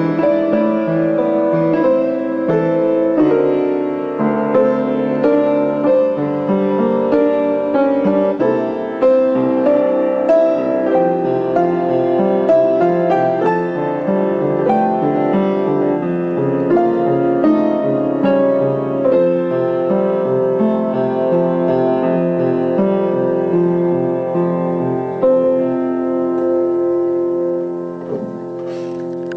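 Instrumental piano music, a continuous run of changing notes that dips slightly in level near the end.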